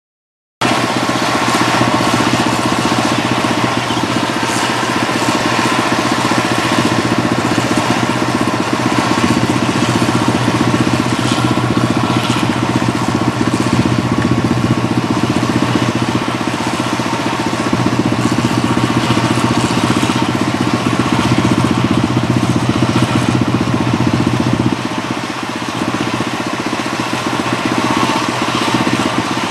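Two 8060 combine harvesters running steadily while harvesting rice: a continuous, loud engine and machinery drone. It starts abruptly just after the beginning and dips briefly near the end.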